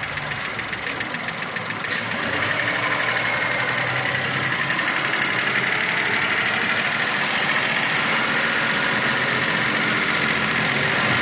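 Volkswagen Polo engine idling with a fast, light, even ticking, growing a little louder about two seconds in. A mechanic puts the noise down to the timing chain and the tappets, and judges it nothing to worry about.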